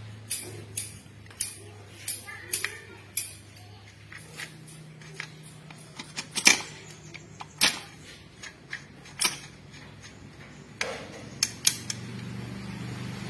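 Irregular sharp metallic clicks and clinks, well over a dozen, from hand tools and steel parts being handled while a manual transmission is assembled, over a faint steady low hum.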